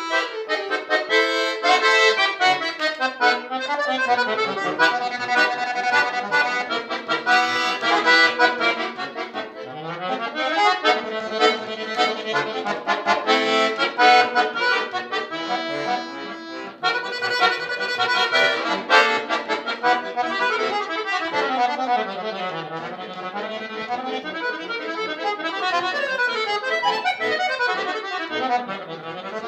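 Solo accordion playing a fast classical concert piece in quick runs that sweep up and down, with a brief pause about two-thirds of the way through.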